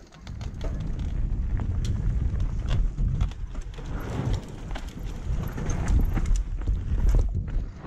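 Mountain bike riding down a dirt singletrack: a heavy low rumble of tyres and wind buffeting the microphone, with irregular clicks and rattles from the bike's chain and frame over roots and bumps.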